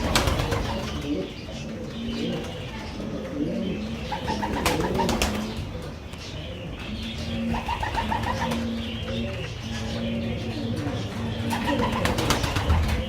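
Several pigeons cooing, their low rolling calls overlapping continuously, with a few sharp knocks in between.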